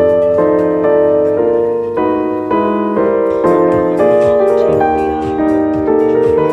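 Background instrumental music with piano: a steady melody of held notes changing about twice a second.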